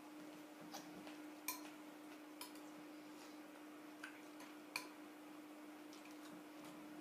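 Quiet eating sounds at a table: a few faint, irregularly spaced clicks from chewing and a spoon in a glass bowl, over a steady low hum.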